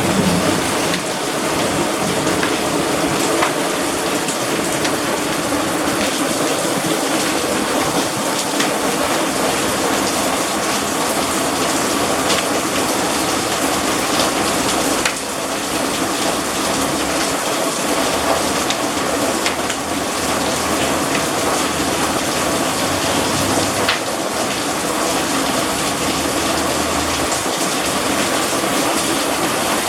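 Hailstorm: heavy rain pouring down in a steady, loud rush, with occasional sharp impacts standing out from it.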